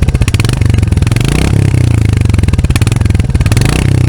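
Older Royal Enfield Hunter 350's single-cylinder engine being revved: the firing pulses speed up with each throttle blip, about a second and a half in and again around three seconds, then drop back toward idle near the end.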